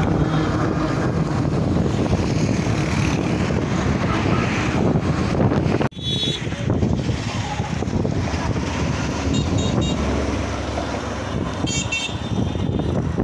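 Highway traffic passing close by, a heavy truck among it, with wind buffeting the microphone. The sound breaks off briefly about halfway through, then the traffic and wind noise carry on, with a few short high-pitched tones in the second half.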